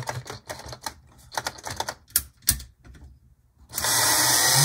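Irregular clicks and taps of an HO-scale Bachmann F9A model locomotive being handled on plastic track, then near the end its pancake motor starts and runs with a loud, steady whir.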